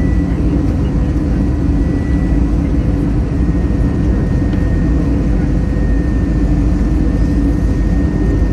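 Airbus A321 cabin noise on final approach, heard from a window seat over the wing: a steady loud rush of jet engines and airflow, with a thin high whine that sinks slightly in pitch.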